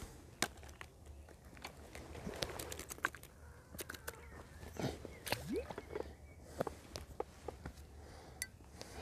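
Scattered clicks, taps and rustles of an angler handling a feeder rod and tackle on the bank, over a faint steady low hum.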